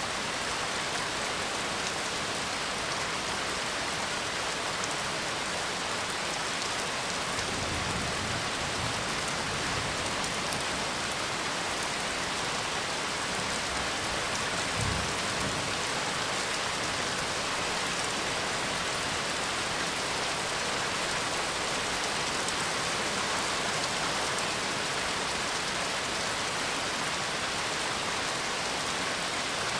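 Steady rain falling in an even hiss, with two low rumbles of distant thunder, one about a quarter of the way in and a shorter one near the middle.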